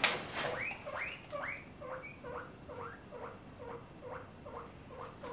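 Guinea pigs wheeking: a quick series of short squeals, each falling in pitch, about three a second, the call they make begging for food. A plastic shopping bag rustles briefly at the start.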